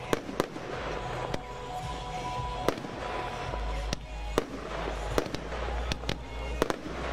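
A 20 mm salute-only fireworks cake firing: about ten sharp bangs of shells bursting, unevenly spaced, over a continuous low rumble.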